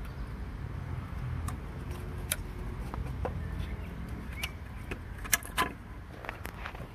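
Scattered sharp plastic clicks and knocks as the oil filler neck of a Ford 2.0 TDCi Duratorq diesel is twisted and pulled up out of its seat, the loudest pair near the end. A steady low hum runs underneath.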